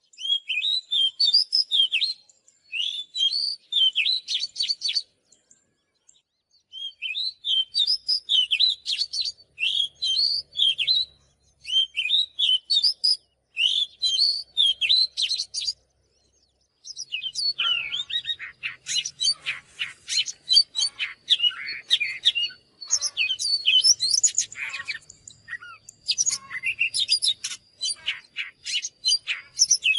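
Oriental magpie-robin singing: quick, varied runs of whistles and chirps in bouts, with two short pauses, the second half denser and fuller.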